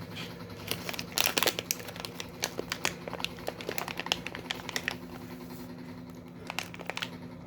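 Plastic cat-treat packet crinkling as it is handled, in irregular crackles that are densest in the first five seconds and thin out after.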